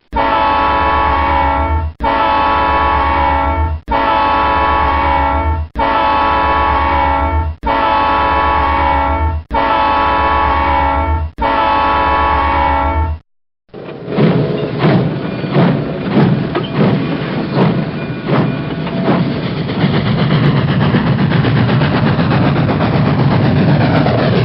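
A train horn sounds seven times in a row, each steady blast about two seconds long with a brief break between. After a short silence a train runs along the track, a continuous rumble with the irregular clatter of wheels over rail joints.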